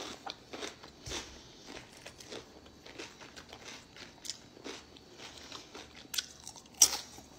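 Close-up crunching and chewing of raw cucumber, a run of short crisp crunches, with two louder bites near the end.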